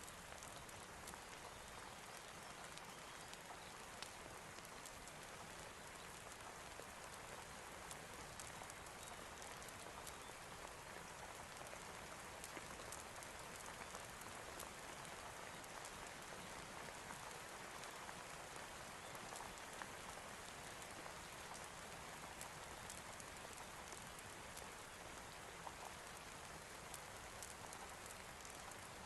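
Steady rain: an even hiss with many fine, scattered ticks.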